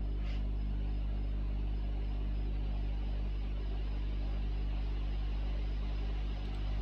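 Steady low hum made of several fixed low tones, with a faint hiss over it: the constant background noise of the recording setup.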